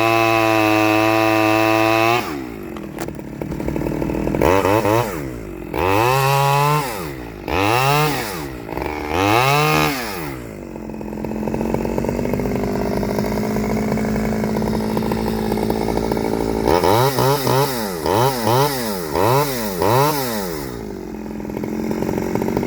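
Stihl 009L two-stroke chainsaw with its standard single-screw carburettor, ported. It is held at high revs for about two seconds, then drops to idle. It is blipped up to high revs and back four times, idles, then is revved in a quick run of about six blips before settling back to idle.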